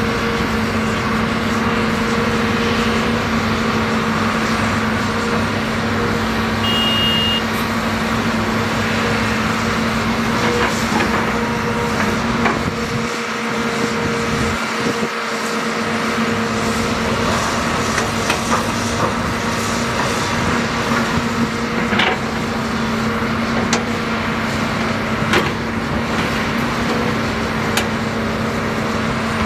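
Shantui-built Matador ME315 crawler excavator's diesel engine running under load with a steady low drone, while soil drops from the bucket into a dump truck's steel bed with occasional knocks. A brief high beep sounds about seven seconds in.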